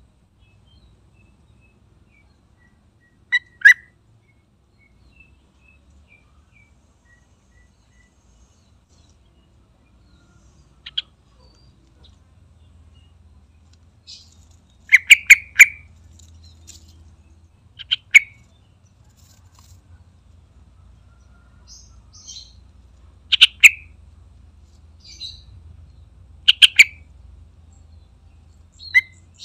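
Yellow-vented bulbul (trucukan) calling in short, loud phrases of a few quick notes each, spaced several seconds apart, with the busiest cluster of notes about halfway through. Fainter, higher chirps come between the phrases.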